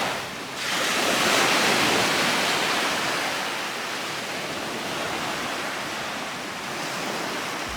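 Small waves washing up on a sandy beach, the surf swelling about a second in and then slowly easing back.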